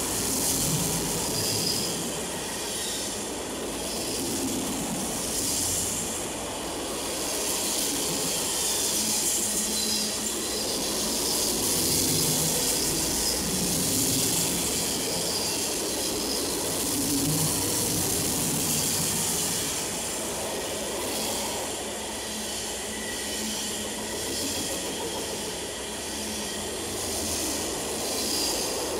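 Freight cars of a long CN mixed-freight train rolling past close by at speed. A steady rolling roar of wheels on rail carries a faint repeating clatter of about one to two beats a second.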